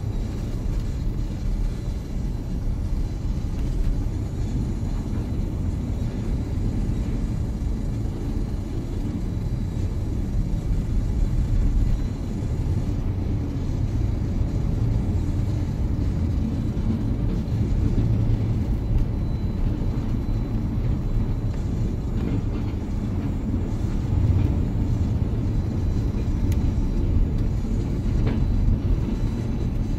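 Steady low rumble of a car driving on a snow-covered road, heard from inside the cabin.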